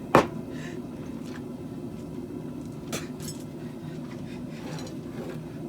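One sharp metal clank just after the start, a lighter metallic clink about three seconds in, and a few faint ticks, over a steady low hum.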